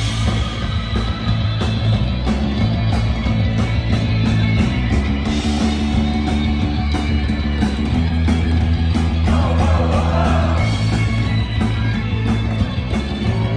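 Live rock band playing loud through a PA: distorted electric guitars, bass and a steady drumbeat.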